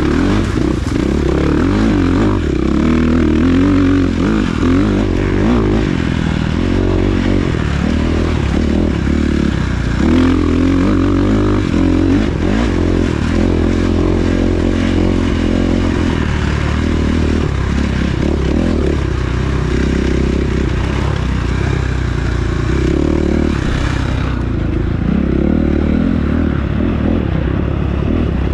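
Off-road racing engine heard from the vehicle's onboard camera, revving continuously, its pitch rising and falling as the throttle is worked through the course.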